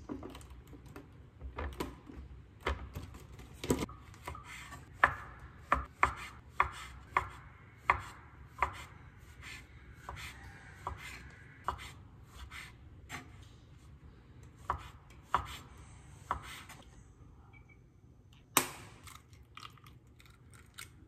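Kitchen knife slicing button mushrooms on a wooden cutting board, the blade knocking the board in a run of irregular chops, about one or two a second. Near the end comes one louder sharp crack as an egg is broken.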